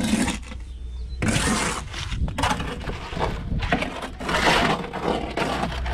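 A trowel scraping and working wet cement mortar in about six gritty strokes, roughly one a second.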